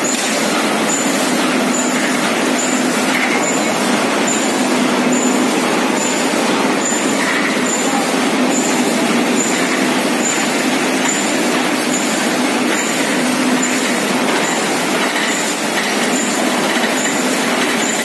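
Roll mesh welding machine for 1.5–3.5 mm wire running: a loud, steady mechanical noise. A short high tone repeats evenly a little faster than once a second, in step with the machine's cycle.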